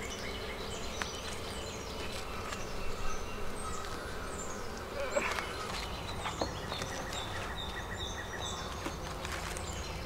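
Honeybees humming steadily around an opened hive, with a few sharp clicks and scrapes as a steel hive tool pries the frames apart.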